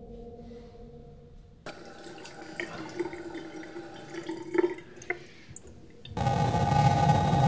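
Water running from a bathroom tap into a sink, splashing, starting suddenly about two seconds in over a faint low drone. Near the end a much louder steady droning noise cuts in abruptly.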